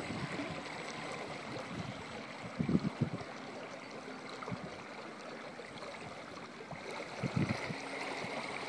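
Choppy water lapping at the shore, with a faint steady high whine underneath. Two brief louder low rushes come about three seconds in and again about seven seconds in.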